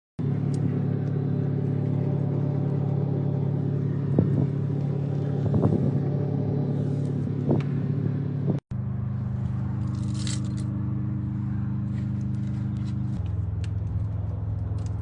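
An engine running steadily at idle, with a few short metallic clicks over it. The sound drops out for a moment about nine seconds in, and the hum settles to a lower pitch about thirteen seconds in.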